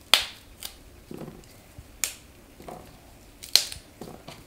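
Fresh asparagus spears snapped by hand at the woody end of the stem: four sharp snaps spread over a few seconds, the first and last the loudest.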